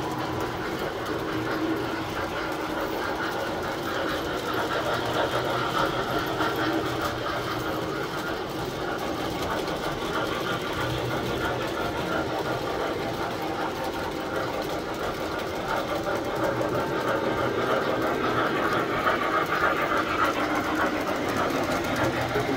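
Tinplate model trains running steadily on metal three-rail track: a continuous mechanical whir and rattle of small electric motors and metal wheels, getting a little louder near the end.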